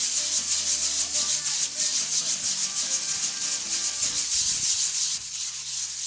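Electric orbital sander running on a laminated wooden canoe hull: a steady, fast-pulsing sanding hiss over the motor's low hum, a little quieter near the end.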